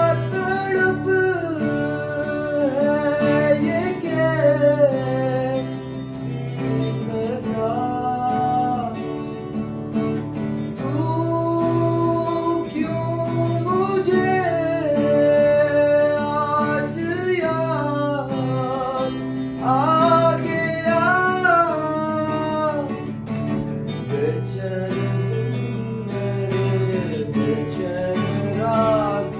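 A man singing a melodic love song to acoustic guitar accompaniment.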